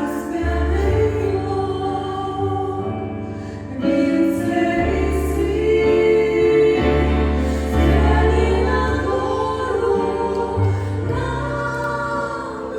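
A church choir singing a Russian-language hymn in held chords over a low bass line.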